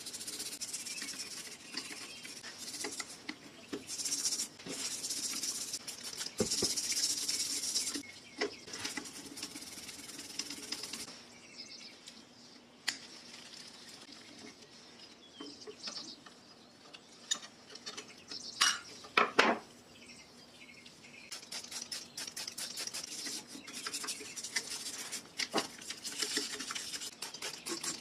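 Small metallic clicks and clinks as parts of a Pfaff 1245 industrial walking-foot sewing machine's mechanism are handled with gloved hands and tools, with stretches of rubbing noise. The loudest is a quick pair of clinks about two-thirds of the way through.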